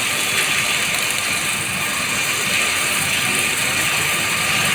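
CNC plate drilling machine at work: a steady mechanical noise with a faint high whine.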